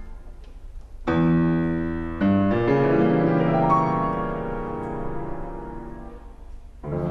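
Piano music: a chord struck about a second in, another just after two seconds, then a rising run of notes that rings on and fades. New music comes in just before the end.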